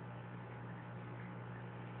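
Aquarium pump running: a steady low hum over an even hiss.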